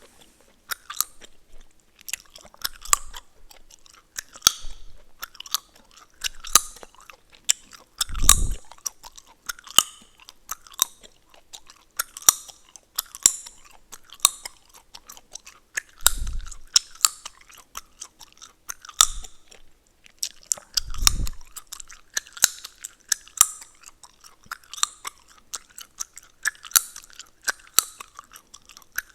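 Chewing gum being chewed close to the microphone, a steady run of wet smacks and sharp cracking clicks, about one or two a second, with a few brief low thumps now and then.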